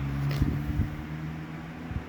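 A steady low mechanical hum, easing off a little near the end, with a few soft low thumps.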